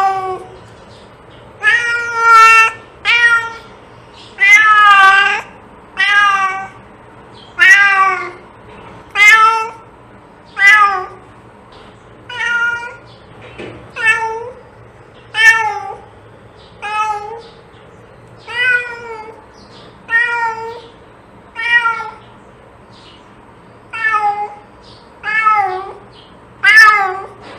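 A domestic cat meowing over and over: about twenty short meows, one every second or so, each rising then falling in pitch.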